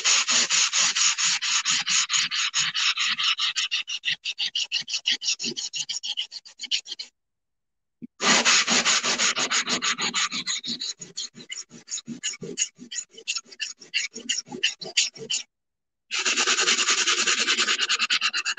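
Sanding block scrubbed rapidly back and forth over a ceramic tile coaster, several strokes a second, sanding off its printed words. It comes in three bouts with short pauses about 7 and 15 seconds in.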